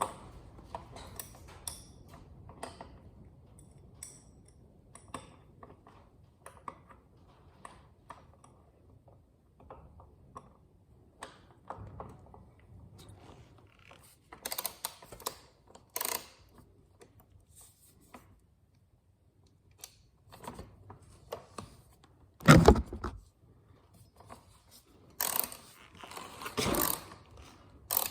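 Metal hand tools clinking and scraping while a wrench is worked on a motorcycle's rear axle, in scattered short clicks with a few longer clattering stretches. One loud knock comes about three quarters of the way through, and a burst of clatter follows near the end.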